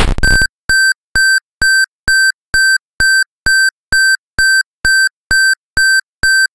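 A brief burst of electronic noise, then a regular series of short electronic beeps at one high pitch, a little over two a second.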